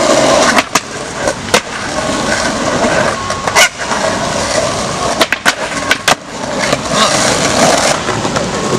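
Skateboard wheels rolling with a steady rumble, broken by several sharp clacks of boards hitting the ground.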